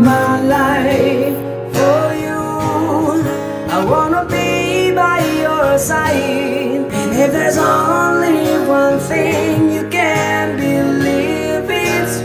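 A young man with a high, clear voice singing an English love song, accompanying himself on a steel-string acoustic guitar.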